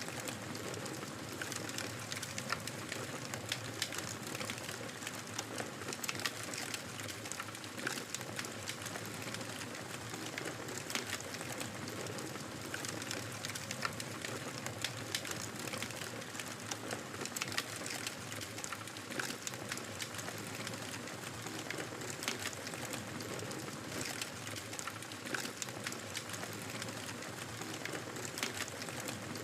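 Wood fire crackling in a fireplace: a steady hiss with frequent, irregular pops and snaps.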